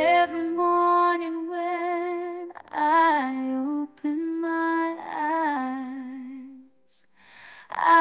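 Female voice singing slow, long held notes with vibrato in a pop ballad, with little beneath it.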